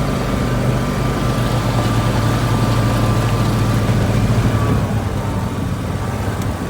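Gator utility vehicle's engine running steadily as it drives uphill, easing off about three-quarters of the way through.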